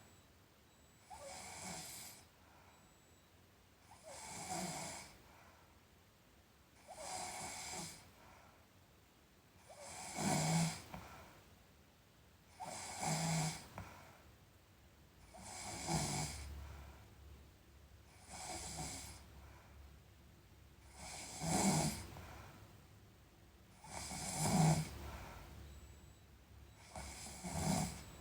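A sleeping person snoring, about one snore every three seconds, some noticeably louder than others.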